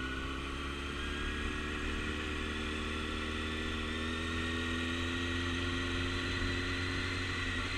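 Motorcycle engine running steadily at low speed, its pitch creeping slightly upward.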